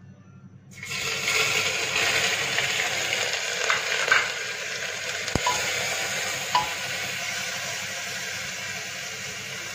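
Chopped onion, ginger, green chilli and garlic hitting hot oil in a pressure cooker and sizzling. The sizzle starts suddenly about a second in and slowly grows quieter. A few clicks of a steel ladle stirring against the pot come through it.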